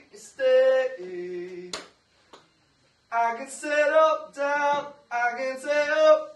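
A man singing a melody alone, with no backing, in short held phrases. About two seconds in there is a pause of about a second, and then the phrases carry on.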